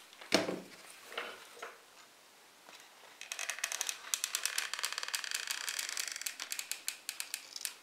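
Hot glue gun laying glue around a speaker's voice coil: a knock as it is picked up and set in place, then from about three seconds in a rapid run of small clicks with a faint rasp as the trigger is worked and the nozzle drawn around the coil.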